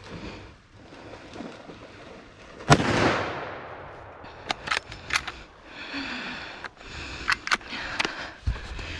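A single gunshot from a scoped deer-hunting gun about three seconds in, with a long echo fading through the woods. A few sharp clicks and handling noise follow.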